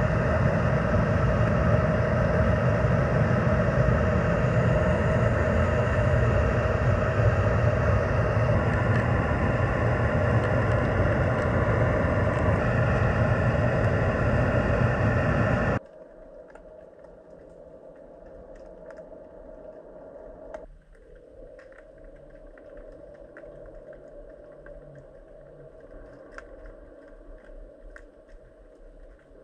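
Underwater camera audio: a loud, steady mechanical hum with several held tones, which cuts off suddenly about halfway through. After it comes only a faint underwater rumble with scattered small ticks.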